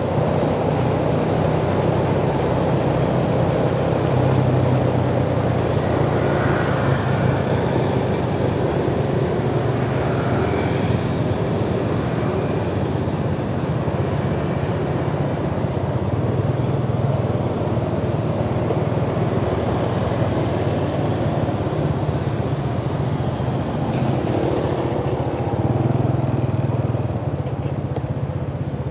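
A motorcycle engine running steadily while ridden, with the steady rush of road and traffic noise around it.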